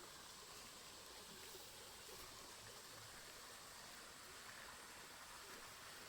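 Faint, steady rush of running water from the jungle waterfall's stream.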